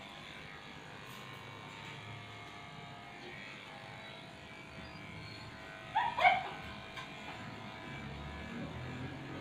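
Cordless electric pet clipper running steadily as it shaves through a matted Shih Tzu's coat. About six seconds in, the dog gives one short, high-pitched whimper.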